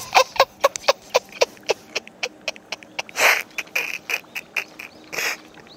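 A freshly landed mandarin fish flapping on wet concrete: a fast run of sharp slaps and taps that thins out after about two seconds. Two short breathy exhales from the angler come later.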